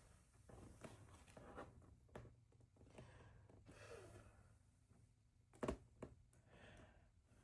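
Very quiet: faint breaths blowing on hot glue to cool and set it, over a low steady hum, with one short knock about two-thirds of the way through.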